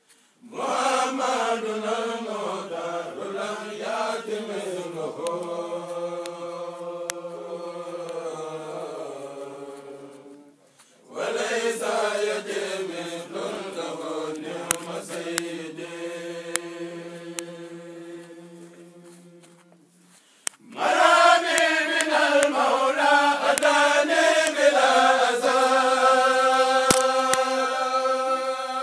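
A group of men chanting a xassida, a Sufi devotional poem in Arabic, together in unison. The chant comes in three long phrases, each opening with a winding, ornamented line and settling into long held notes, with brief pauses for breath between them.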